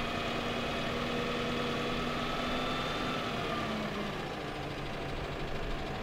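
Peterbilt 220 hook truck's diesel engine running while its Palfinger hooklift hydraulics lower the tarped, loaded dumpster level onto the truck frame. A steady engine hum with several held tones, some dropping in pitch and stopping about three to four seconds in, after which it settles a little quieter.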